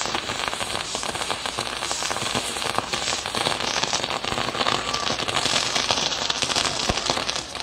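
Fireworks on a Mexican castillo tower going off: a dense, continuous crackling and popping of firecrackers and sparkling pyrotechnics. It grows louder toward about six seconds in and eases near the end.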